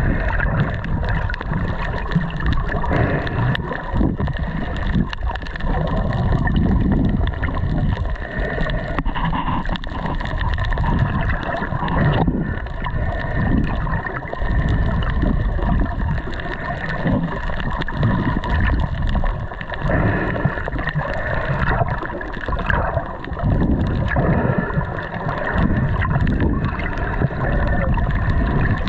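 Boat out on the sea: a steady engine drone under uneven splashing and gurgling of water.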